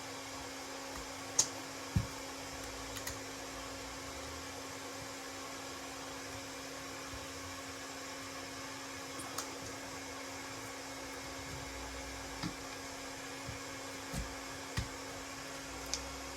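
Steady low electrical hum of workbench equipment, with a few faint, scattered clicks and taps from tools and fingers handling the phone as its back glass is pried open.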